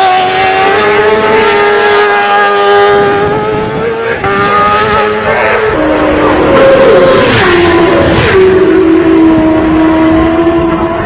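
Road-racing motorcycle engine running hard at high revs, its pitch holding and then stepping several times through gear changes.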